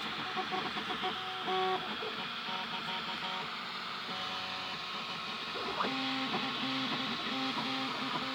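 3D printer's stepper motors whining at pitches that jump every fraction of a second as the print head moves, over a steady fan hiss.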